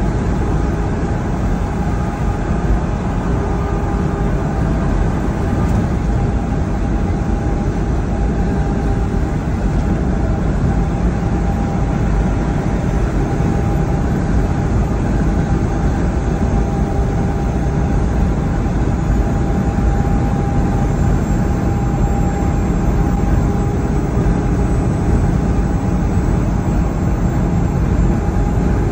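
Semi truck cruising at highway speed, heard inside the cab: a steady drone of diesel engine and tyre noise, with a faint steady whine on top.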